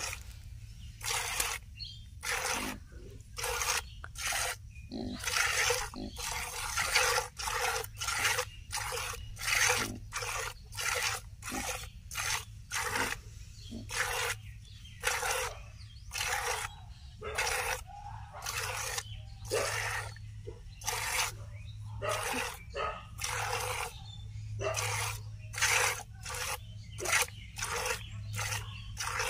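Cow being milked by hand: rhythmic squirts of milk hissing into a plastic bucket, about two a second, as the hands alternate on the teats.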